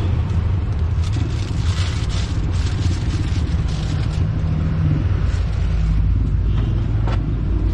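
Steady street traffic noise with vehicle engines running, and a single sharp click about seven seconds in.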